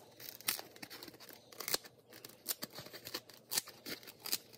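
Foam pipe insulation being cut with scissors: a string of short, irregular snips and crunches.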